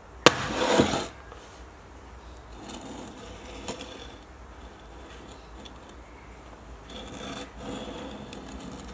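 An old cast-iron Stanley Bailey No. 4 hand plane is set down with a knock and slid along a wooden workbench, the loudest sound and lasting under a second. It is then shifted and turned on the bench top with quieter scraping and rubbing, and a small click.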